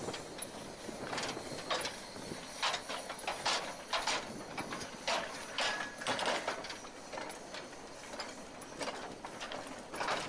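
Narrow-gauge railway wagons rolling slowly past, their wheels clicking and knocking irregularly over the rail joints, the clicks often coming in pairs.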